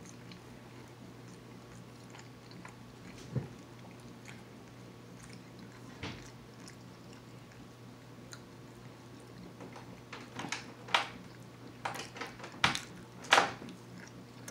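A man chewing french fries close to the microphone, with scattered wet mouth clicks and smacks that come thicker in the last few seconds. A faint steady hum lies underneath.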